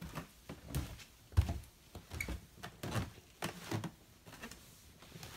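Footsteps going down a wooden staircase: irregular low thumps and knocks, about two a second, with one heavier thud about a second and a half in.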